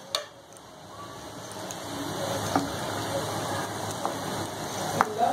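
Hot oil sizzling steadily as dough-wrapped chicken pieces deep-fry in a pan, with a couple of sharp clicks of a metal utensil against the pan as the pieces are turned.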